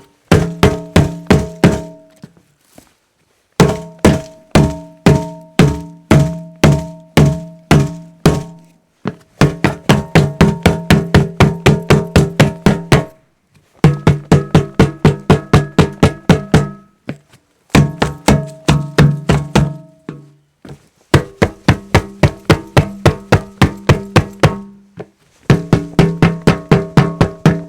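Repeated strikes on a hollow object, each with a short ringing, pitched resonance. The strikes come in runs of several hits with short pauses between them, at about two to four hits a second, and the pitch of the ring shifts a little from run to run.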